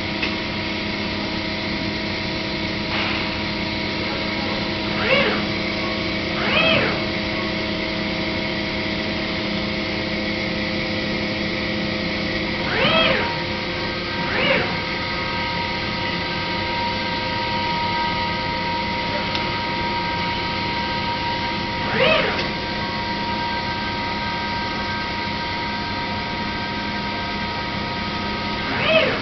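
Mazak Variaxis 630-5X CNC machining center running with a steady multi-tone hum. Six brief whines rise and then fall in pitch, in pairs and singly.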